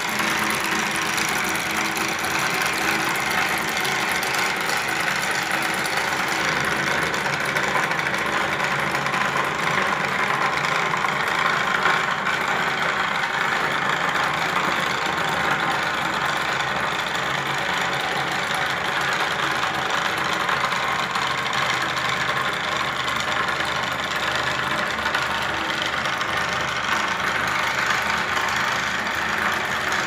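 Small electric motors of a homemade model combine harvester running steadily, turning its reel and cutter through a belt and pulley.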